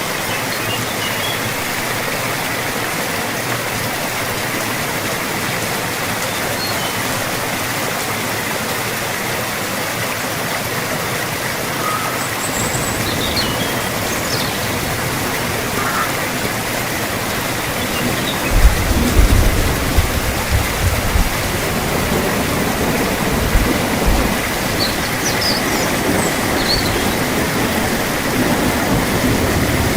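Steady rain falling, an even hiss. About halfway through a deep rumble joins it, with heavy low thuds peaking around two-thirds of the way in.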